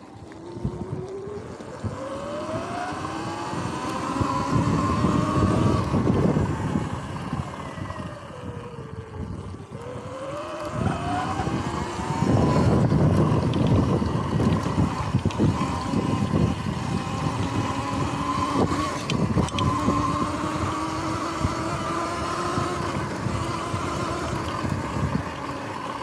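Sur-Ron X electric dirt bike's drive whine, rising in pitch as it speeds up over the first few seconds, dropping away about eight to ten seconds in, then climbing again and holding steady. Wind rushes over the microphone throughout, loudest at the faster stretches.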